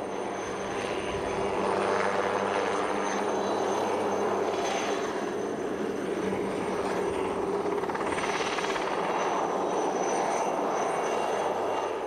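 Helicopter in flight: steady rotor and engine noise with a thin high turbine whine, cutting off abruptly at the end.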